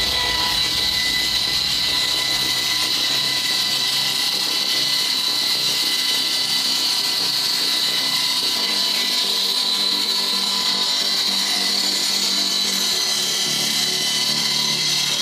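Woodworking power machine running steadily with an unbroken high whine, typical of a saw or wood-processing machine at work.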